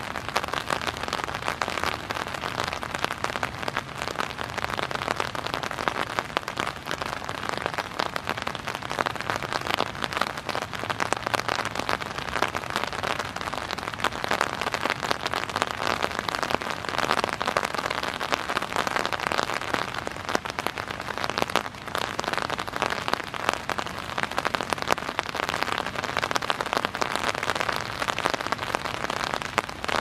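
Rain falling on an umbrella: a steady, dense rattle of many small raindrops hitting the fabric.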